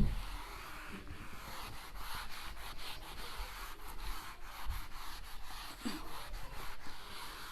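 Handwriting: a pen or marker scratching and rubbing across a writing surface in many short strokes.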